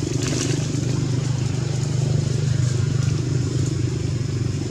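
A steady low engine hum, with faint splashing just after the start.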